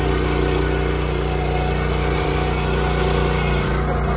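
Small single-cylinder petrol engine of a walk-behind power tiller running steadily while its rotary tines till the soil.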